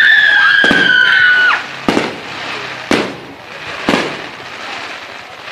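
Aerial firework shells bursting with sharp bangs about once a second. A high, slightly falling whistle sounds over the first second and a half, then cuts off.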